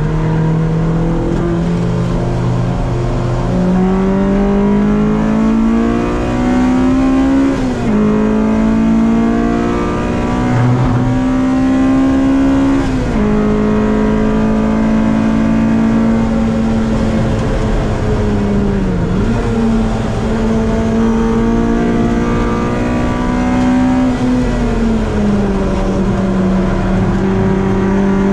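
Honda Civic race car's B-series VTEC four-cylinder heard from inside the cabin at full throttle, its pitch climbing through the gears with sharp drops at upshifts about 8 and 13 seconds in. It then holds a steady high note, with brief dips around 19 and 24 seconds in, over road and wind noise.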